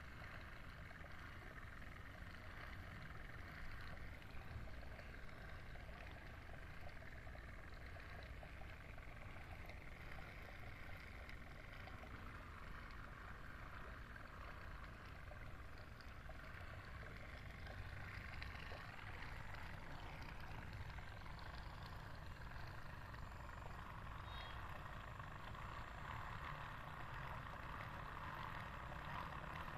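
Small DC water pump on a jar lid running steadily, pumping cooling water through plastic tubing, a faint continuous whir that grows a little louder near the end.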